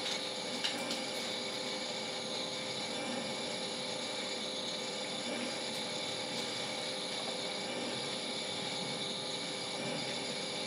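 A 1 kg Mill City drum coffee roaster running mid-roast, with a batch of coffee beans tumbling in the rotating drum. It makes a steady mechanical whirr with several constant hum tones, and a few sharp clicks in the first second.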